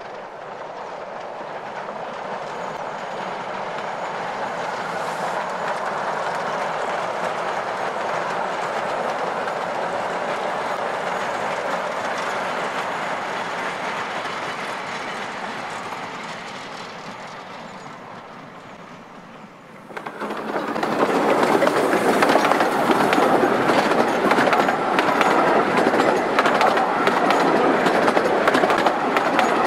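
Narrow-gauge steam train running past: a steady rush that swells and then fades as the train comes by at a distance. About twenty seconds in it switches to a louder, close-up clatter of carriage wheels over the rail joints as the coaches pass.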